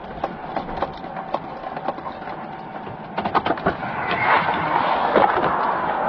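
Handling noise on a body-worn camera as the wearer gets out of a car: scattered clicks and rustling, turning into louder, denser rustle about four seconds in.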